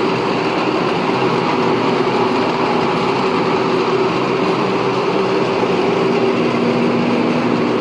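Coffee wet-mill washing machine running steadily, churning wet coffee beans with water: a constant motor hum over the splash and rattle of the wet beans. A lower hum joins near the end.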